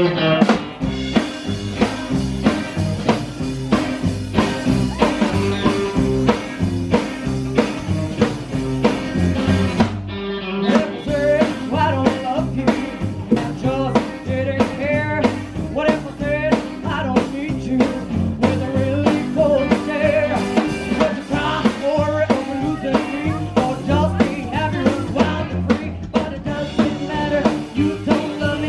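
Live rockabilly band playing upright bass, drum kit and electric guitar to a steady beat. After a short break in the music, a woman's lead vocal comes in about a third of the way through.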